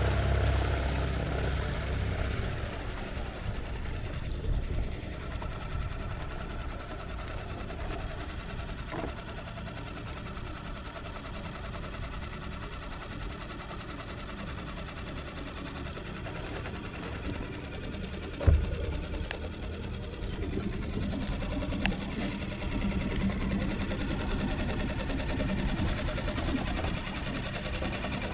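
Small petrol outboard motor pushing a dinghy along, running steadily, with a single thump about two-thirds of the way through. It gets a little louder over the last few seconds.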